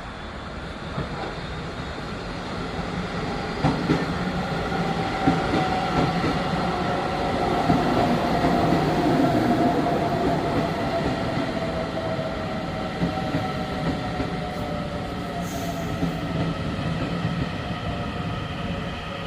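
A train passing by. Its pitched running drone builds up and then eases away, with a few sharp clicks of the wheels over rail joints.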